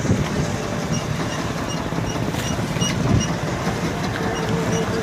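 Fishing boat's engine running steadily with a low rumble and a light regular ticking, about two to three ticks a second.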